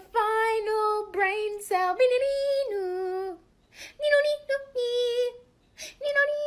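A high voice singing short phrases of long held notes that step up and down in pitch, with short breaths between the phrases.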